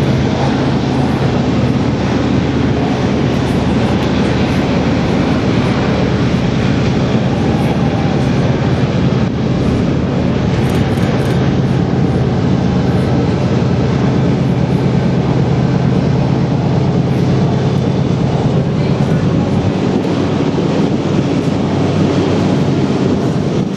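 Diesel locomotives hauling a long train of loaded coal hoppers: a steady low engine drone over rolling rail noise. The drone eases off about twenty seconds in.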